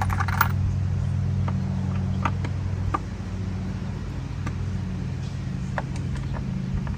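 A steady low mechanical hum, with a few light clicks of small metal screws and tools being handled.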